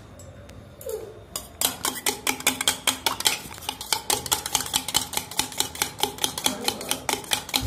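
Eggs being beaten in a stainless steel tumbler: a utensil clinking fast and regularly against the metal, about five or six clinks a second, starting about a second and a half in.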